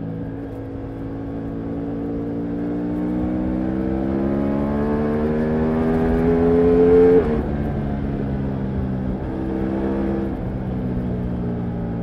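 Ducati Multistrada V4 Rally's 1158 cc V4 engine under hard acceleration, heard from the rider's seat: one long pull with the revs rising steadily and the sound getting louder. About seven seconds in, the revs drop sharply and the engine runs on at a lower, quieter note.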